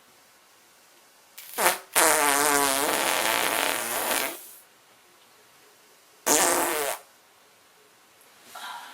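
Farts. A brief one comes about a second and a half in, followed at once by a long fart of about two seconds whose pitch wobbles up and down. A short, airy one comes about six seconds in.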